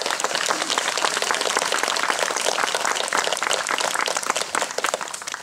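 An audience applauding, the clapping tailing off near the end.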